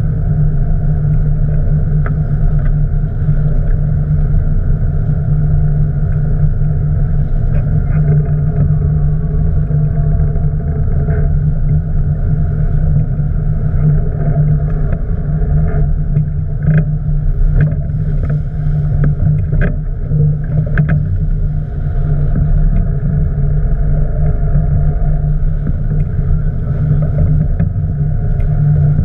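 Boat engine running steadily, a loud even drone, with a few faint knocks about halfway through.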